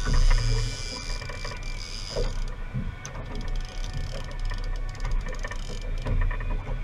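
Spinning reel whirring and clicking rapidly as a hooked fish is fought and reeled in, over the low, steady rumble of the boat's engine.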